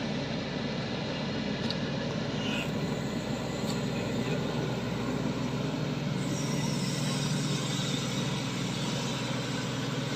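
Shantui excavator's diesel engine running steadily under work, with a constant low hum and a couple of faint clicks.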